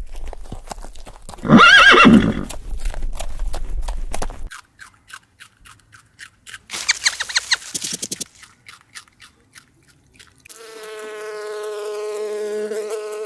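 A horse neighs loudly about two seconds in, with hooves clip-clopping, then whinnies again about seven seconds in. Near the end, a steady bee buzzing begins.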